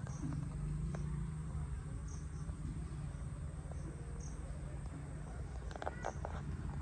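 Insect chirping: short high-pitched chirps repeating about once a second over a low steady hum, with a few clicks about six seconds in.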